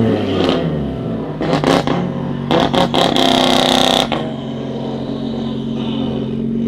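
Turbocharged 2.5 TFSI inline-five in a Golf 7.5 R, its revs falling away at first. Over the first four seconds it sends out several bursts of sharp exhaust pops and crackles, then settles into a steady, lumpy idle.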